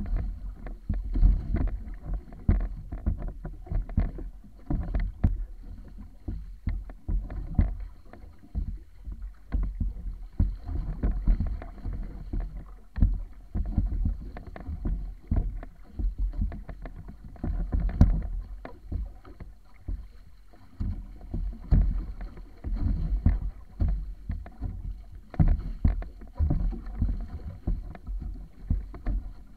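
Water splashing and rushing along the wooden hull of a wa'apa outrigger sailing canoe under way, coming in irregular surges and slaps, with low rumbling wind on the microphone.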